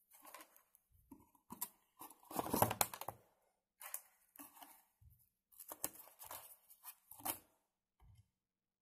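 Hands handling the cardboard packaging and paper instruction leaflet of a small speaker on a wooden desk: irregular rustling and scraping with light knocks, loudest about two to three seconds in.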